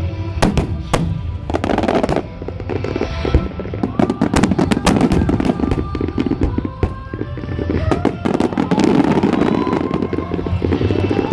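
Aerial fireworks bursting in rapid volleys with crackling, over music accompanying the display.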